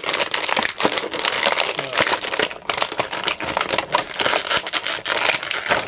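Clear plastic action-figure packaging crinkling and crackling continuously as hands work the figure free of its plastic tray.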